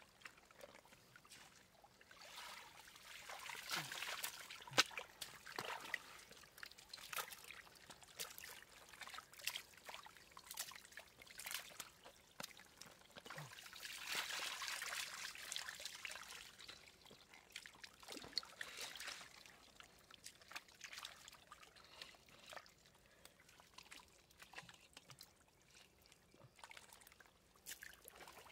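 Faint shallow water trickling and sloshing, with irregular small splashes and clicks coming and going, strongest about four seconds in and again around the middle.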